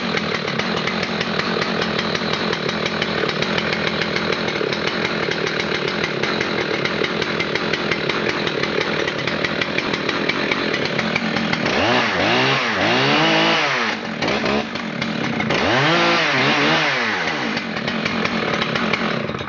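Husqvarna 3120 XP two-stroke chainsaw idling steadily, then revved up and back down twice before settling back to idle.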